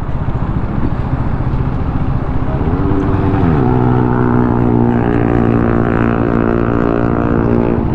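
A vehicle engine running, its pitch dropping about three seconds in and then holding steady.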